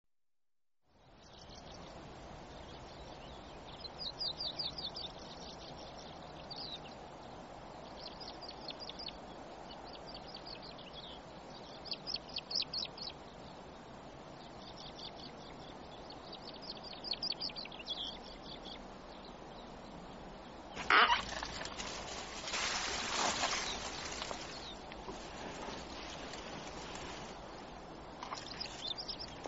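Birds calling in short, rapid high trills every few seconds over a steady outdoor hiss. About 21 seconds in comes a sudden loud noise, then a couple of seconds of louder noise.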